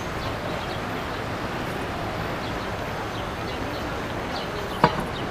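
Steady outdoor noise with small birds chirping faintly and repeatedly, and one sharp knock near the end.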